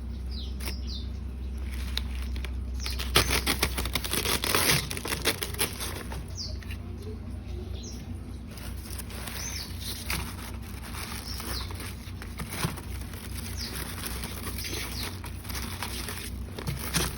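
Packaging being handled and unwrapped: irregular rustling and crinkling with sharp clicks, busiest a few seconds in, and a few brief high squeaks.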